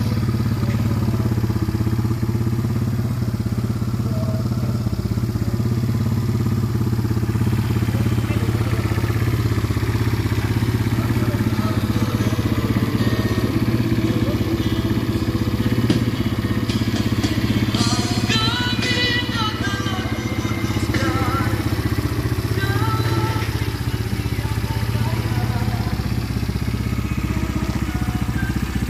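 Mikilon Hammer 200 ATV engine idling steadily, not revving.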